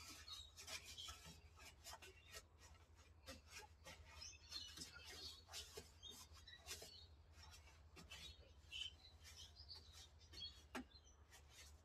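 Faint bird chirps with quiet, irregular scrapes and clicks of a paintbrush working over the bare sheet-metal floor of the cab.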